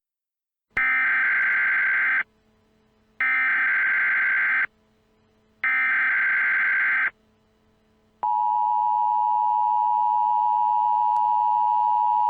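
Emergency Alert System SAME header: three identical bursts of warbling digital data tones, each about a second and a half long with short gaps between them. About eight seconds in comes the EAS attention signal, a steady two-note tone that holds on.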